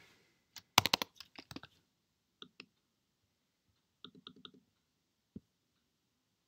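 Computer keyboard keystrokes and mouse button clicks: a quick cluster of key taps about a second in, then a pair of clicks and a fast run of four clicks, with a last single click near the end.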